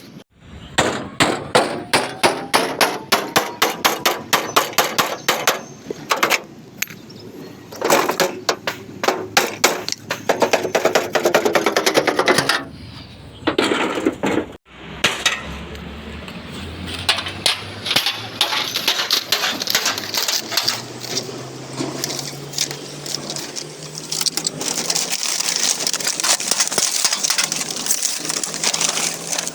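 Hammer blows on a truck's sheet-metal body panel in fast runs of several strikes a second, with short pauses between runs: panel-beating accident damage. In the second half the strikes go on more lightly under a steady low hum and hiss.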